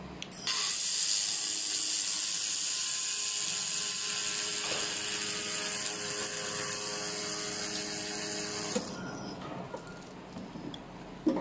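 CW laser welding machine running a weld: a steady hiss with a high, drill-like buzz that starts sharply and cuts off suddenly after about eight seconds. A sharp click follows near the end.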